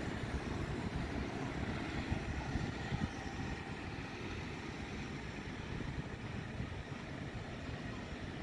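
Steady low rumble of a distant airliner's engines at take-off power, blended with road traffic and wind on the microphone; a little louder in the first three seconds.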